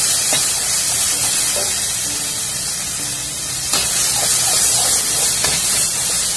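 Ground spice paste sizzling in a metal wok while a metal spatula stirs and scrapes it, with a few sharp clicks of the spatula against the pan.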